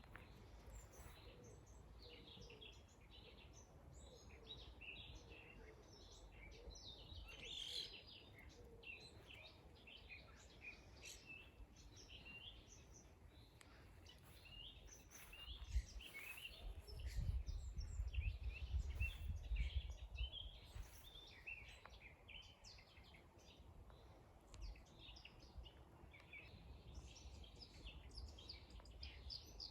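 Several songbirds singing at once, a steady stream of short high chirps and trills. About halfway through, a low rumble rises for several seconds and is the loudest sound.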